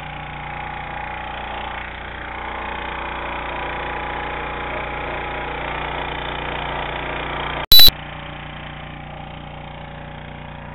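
An engine running steadily with an even hum. About three-quarters of the way through, a very short, loud digital pop marks a cut in the recording, and the engine carries on a little quieter after it.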